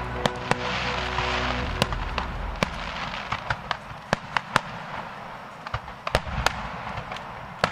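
Fireworks going off: many sharp cracks and bangs at irregular intervals, sometimes several in quick succession.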